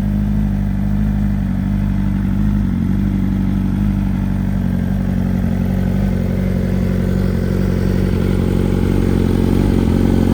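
2023 BMW S1000RR's inline-four engine idling steadily through a Brock's full Pentacarbon exhaust system, still warming up after a cold start, getting slightly louder over the last few seconds.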